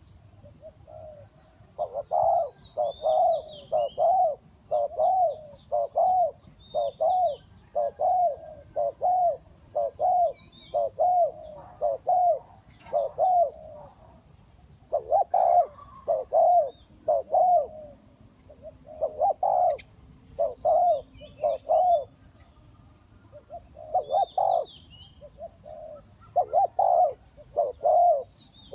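Spotted doves cooing: long runs of short, low coo notes about two a second, broken by brief pauses, with faint high chirps of small birds over them.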